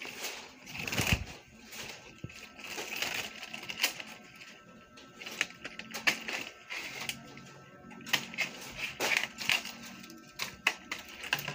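Nipa palm leaflets rustling and crackling as they are handled and folded by hand, making an uneven run of sharp crisp clicks.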